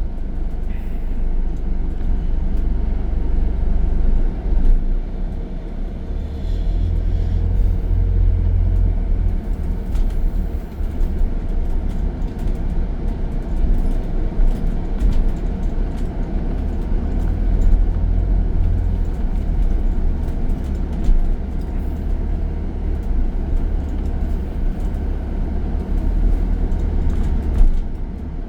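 ADL Enviro 400H hybrid double-decker bus running with its electric cooling fan going: a steady low rumble that grows heavier from about six seconds in until about nineteen seconds in.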